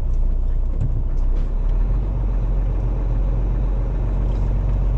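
Diesel engine of a Renault Class 2 rigid lorry running as it drives slowly along a narrow lane, a steady low drone heard inside the cab.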